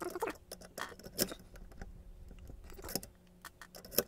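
Key blank held in a handle being pushed into and worked in a pin-tumbler lock cylinder held in a vise while impressioning the lock: a few sharp metallic clicks and scrapes, the loudest a little after a second in and near the end, as the blank is forced against the pins to mark where they bind.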